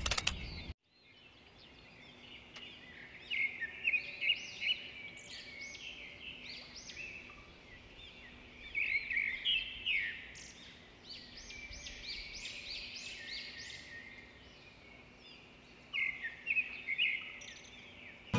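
Small birds chirping outdoors in quick runs of short rising-and-falling notes, coming in clusters every few seconds, over a faint steady low hum.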